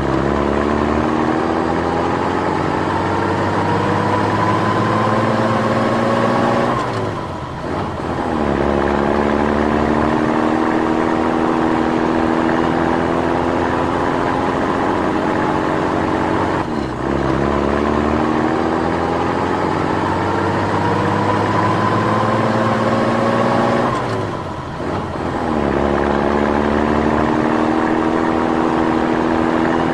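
Truck engine sound effect revving up with a slowly rising pitch. It falls back sharply three times, about 7, 17 and 25 seconds in, and each time climbs again.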